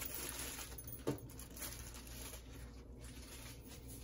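Faint rustling of a plastic bag being handled over a mixing bowl, with one brief knock about a second in, over a steady low hum.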